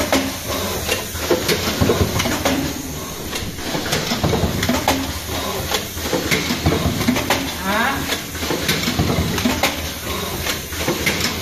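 Automatic plastic-card hot stamping machine running: irregular metallic clicking and clattering from its press and card-handling mechanism, several clicks a second, over a steady machine noise.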